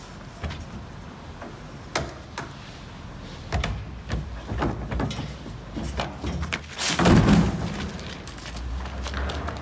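Trainers knocking and thudding on a plastic wheelie bin and the metal railing during a parkour vault, with a loud heavy thump and rattle about seven seconds in.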